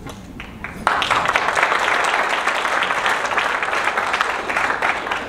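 Audience applause: a few scattered claps, then dense clapping breaks out suddenly about a second in and carries on steadily.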